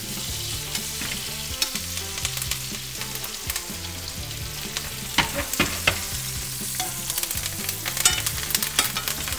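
Butter sizzling and spitting in a frying pan while a tomahawk steak is basted, with a metal spoon clinking and scraping against the pan. The clinks come in a cluster a little past halfway and again near the end.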